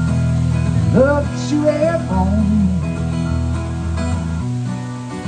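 Steel-string acoustic guitar playing steady ringing chords, with a man's voice coming in for a few short phrases about a second in.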